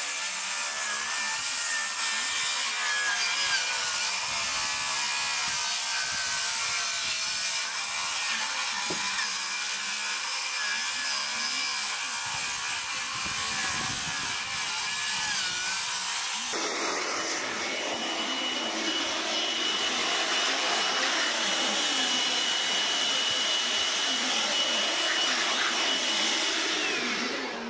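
A handheld cordless power tool runs continuously, cutting along the edge of a wooden-shingled roof, its motor pitch wavering under load. About two-thirds of the way through it gives way suddenly to a cordless Bosch blower running with a steady high whine.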